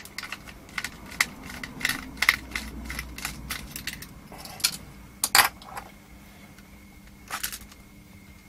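Irregular clicks, taps and rattles of a small plastic power-supply case and its circuit board being handled as the board is worked out of the case, with a sharper knock about five seconds in.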